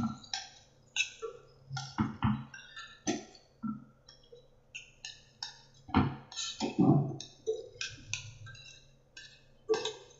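Metal spoon scraping and clinking against a metal pot as soaked rice is stirred in ghee and oil, an irregular run of short scrapes and taps. This is the stage of coating the rice grains in fat before the water goes in.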